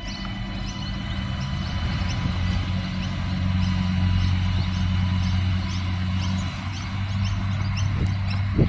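A 3000/3100 class diesel railcar set pulling away, its diesel engines giving a steady low drone that grows louder partway through and then eases as the train draws off. There is a sharp knock near the end.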